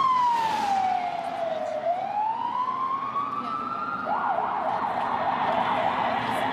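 Ambulance siren wailing in one slow fall and rise of pitch, then switching about four seconds in to a fast yelp of about four warbles a second.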